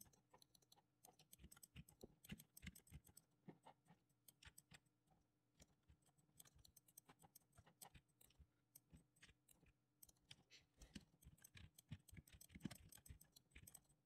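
Faint computer keyboard key presses and mouse clicks, coming in quick irregular runs.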